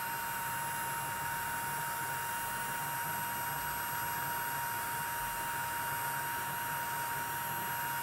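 Paladone USB desktop vacuum cleaner in handheld mode, its small, weak motor running steadily as it sucks up tea leaves. It makes a constant single-pitched whine over an even rush of air.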